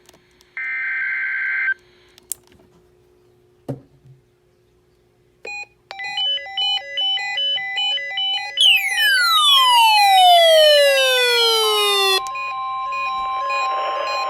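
NOAA Weather Radio alert signalling for a required weekly test. About a second in comes a short buzzy burst of Emergency Alert System (SAME) data tones. From about five seconds in there is electronic beeping that switches between several pitches, then a falling whistling sweep. Near the end the steady 1050 Hz warning alarm tone sounds over radio hiss.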